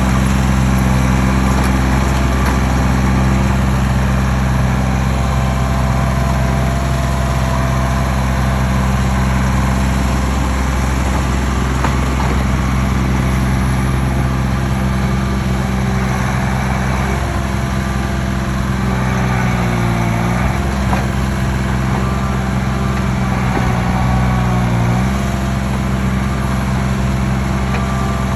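Engine of heavy stump-removal equipment running steadily at working speed, its pitch sagging briefly twice in the second half, as if bogging under load, then recovering.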